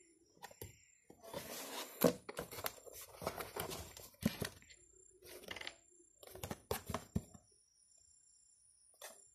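Cardboard box being handled: the paperboard lid and sleeve scrape and rub against each other in several bouts, with a few sharp taps and knocks, stopping about two seconds before the end.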